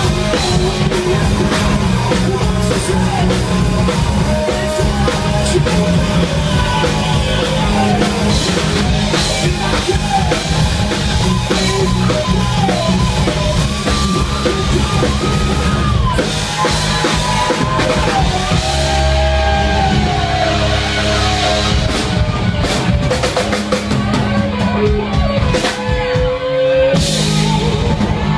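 Live rock band playing loudly: electric guitars, bass and a driving drum kit, with a gliding lead melody line over the top.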